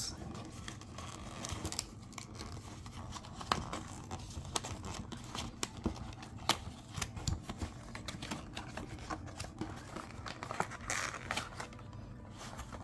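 A thin cardboard card-game starter deck box being opened by hand: scattered clicks and crinkles as the sealed end is pushed in and torn open and the flap and inner tray are pulled out.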